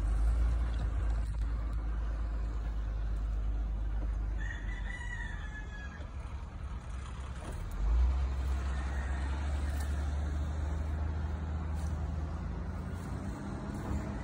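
Low, steady engine rumble of heavy earthmoving machinery, growing louder about eight seconds in. A rooster crows once about four and a half seconds in.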